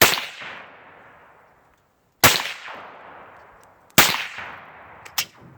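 Three gunshots about two seconds apart, each followed by a long echo that dies away, then a smaller sharp crack near the end.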